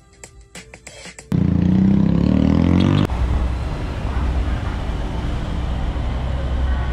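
A short piece of music with a ticking beat, cut off about a second in by a loud motor-vehicle engine rising in pitch for about two seconds. That stops abruptly and gives way to a steady low engine and traffic rumble with outdoor noise.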